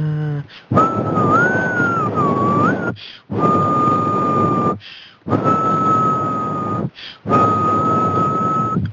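A man whistling four long held notes, with heavy breath noise blowing onto the microphone under each one. The first note wavers up and down in pitch and the other three are held steady, with a short pause for breath between them.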